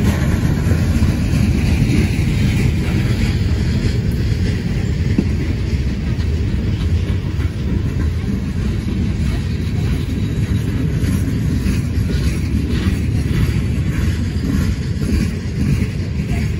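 Freight cars of a CSX local train, open-top hoppers and gondolas, rolling past close by: a steady, loud rumble of steel wheels on the rails, with some clicking from wheels passing over rail joints in the later seconds.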